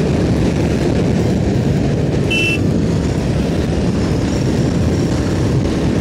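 Royal Enfield Hunter 350's single-cylinder 349 cc engine running hard at speed, a steady dense rumble mixed with rushing wind on the microphone. A short high two-note beep sounds about two and a half seconds in.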